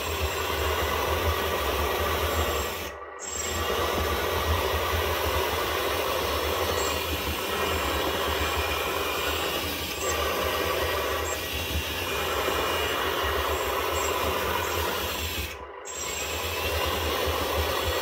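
LESU 850K RC dozer's onboard sound module playing a simulated diesel engine rumble through its small speaker, mixed with the whirr of the track drive motors as the model pivots on its tracks. The sound drops out briefly twice, about 3 seconds in and near the end.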